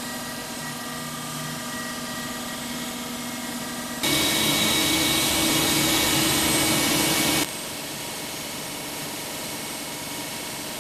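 CNC router spindle running with a steady whine while milling an aluminum plate. From about four seconds in, a louder, hissier stretch of cutting noise starts abruptly and cuts off again about three and a half seconds later.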